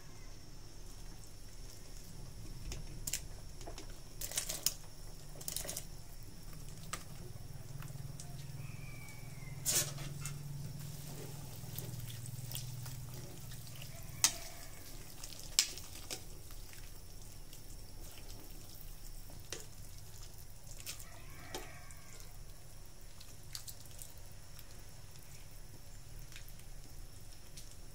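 Chopped vegetables and tomato dropping into a pot of broth with small splashes, then a metal ladle stirring the soup and clinking now and then against the stainless steel pot, over a low steady hum.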